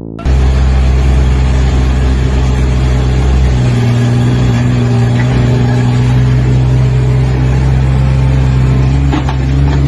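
A motor or engine running steadily and loudly, with a deep hum whose low note shifts slightly about three and a half seconds in.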